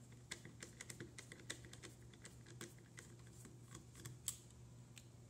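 Faint, irregular small clicks and ticks of a screwdriver turning out the small screw that holds the servo in a Sparki robot's plastic body.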